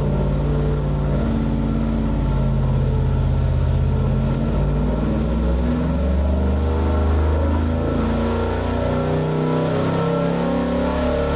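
Stroked 410-cubic-inch Mopar 360 Magnum V8, with stock cylinder heads and a small cam, running under load on an engine dyno during a power pull.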